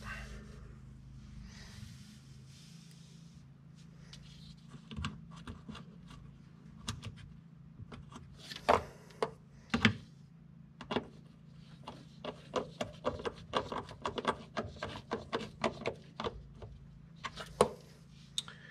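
Hands handling the plastic fog light housing and its wiring connector: scattered sharp plastic clicks and rattles, with a couple of louder knocks around the middle and a quick run of light clicks in the later half. A steady low hum sits underneath.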